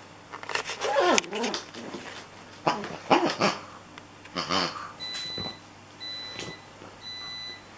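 Beagle puppy making short, loud calls during play, several of them sliding down in pitch. Three short, even high-pitched tones follow, about a second apart.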